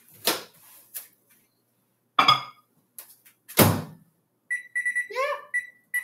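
Microwave oven being loaded and set: a few clicks and knocks, then a solid thunk of the door shutting about three and a half seconds in. Near the end comes a quick run of short keypad beeps as the cook time is entered.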